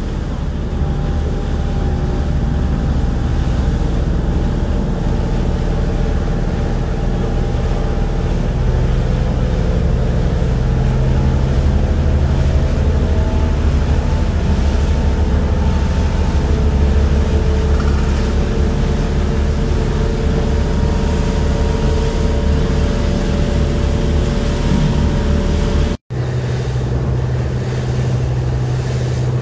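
Motorboat engine running steadily under way, a loud low drone with steady tones over a hiss of wind and water. About 26 seconds in it cuts out for an instant and comes back as a steadier, deeper hum.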